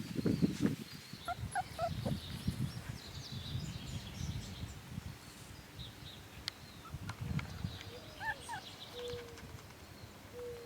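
A young mini Bernedoodle puppy giving short, high whimpers in small clusters, about one and a half seconds in and again near the end, ending in a longer sliding whine, over low rumbling handling noise.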